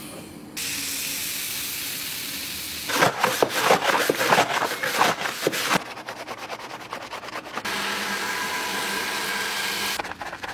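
Foam washing and scrubbing of a car's engine bay in several short cuts: a steady hiss of spray alternates with the rapid scratching of a detailing brush working suds over plastic engine covers and hoses.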